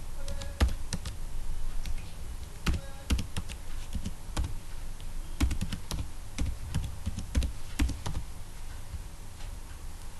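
Computer keyboard typing: irregular keystroke clicks, a few a second, as a word is typed.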